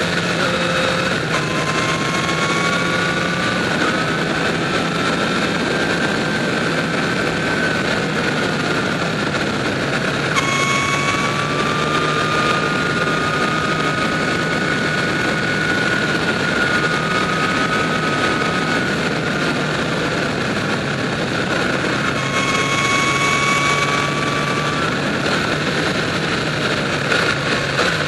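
Sport motorcycle engine running while the bike cruises along a winding road, with heavy wind and tyre noise on the on-bike microphone. The engine note rises and falls gently with the throttle through the curves.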